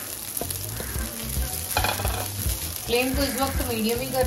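Ground soya crumbles stir-frying with onions in hot oil in a non-stick pan: a steady sizzle with the spatula scraping and tossing them, in irregular strokes.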